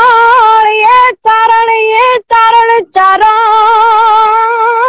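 A woman singing a Gujarati folk song unaccompanied, drawing out long ornamented notes with a wavering vibrato, broken by three short pauses for breath.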